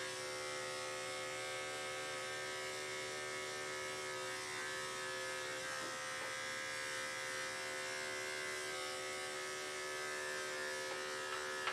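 Electric dog grooming clipper with a 10 blade running steadily during a sanitary trim, a constant electric hum.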